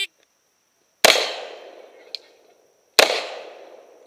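Revolver shots fired in slow, deliberate succession: one about a second in, another about two seconds later, and a third right at the end, each sharp report followed by a fading echo.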